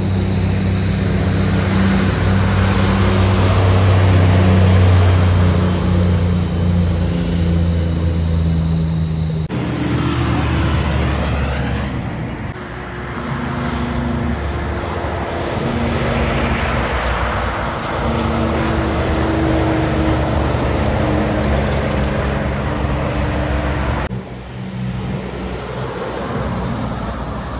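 Heavy diesel engines of Kenworth tanker trucks running and passing on the road, in several separate takes that change abruptly about nine seconds in and again near the end. A steady high buzz sits over the first take.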